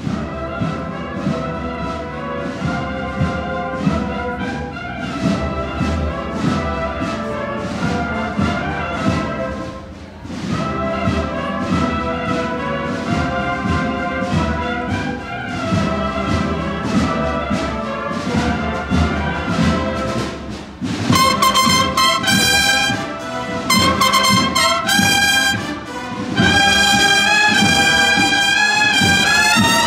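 A cornet-and-drum processional marching band playing a march, with brass melody and chords over steady drumming. It grows louder and brighter about two-thirds of the way through.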